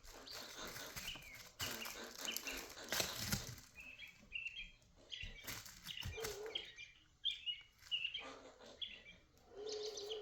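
Small birds chirping in short, repeated calls, with some rustling or handling noise in the first few seconds.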